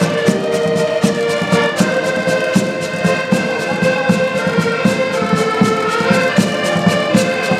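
Several accordions playing a lively folk tune together in a steady rhythm, with a light percussive tick on the beat.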